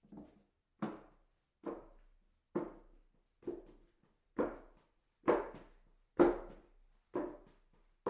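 Footsteps walking up hollow wooden stairs, one thud per step a little under a second apart, about nine steps, with the heaviest treads a little past the middle.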